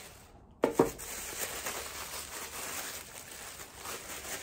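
Two sharp knocks just under a second in, then steady rustling and crinkling of packaging being handled as a pair of shoes is unwrapped.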